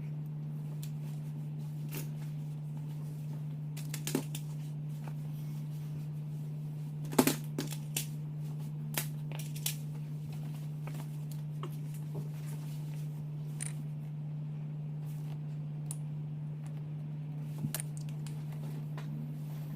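Scattered small clicks, snips and rustles of hand work on speaker wiring (stripping, joining and taping wires), the loudest cluster about seven seconds in, over a steady low hum.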